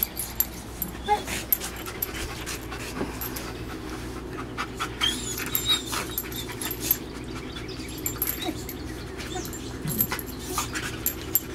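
A German shepherd and a boxer play-fighting, mouthing and scuffling at each other, with scattered sharp clicks and snaps throughout.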